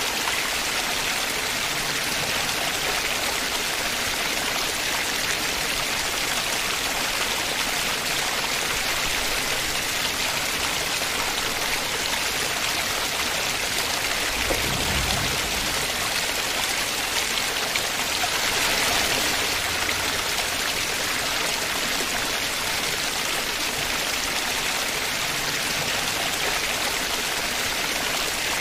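Small waterfall pouring onto rock: a steady hiss of falling, spattering water, with a brief low rumble about halfway through.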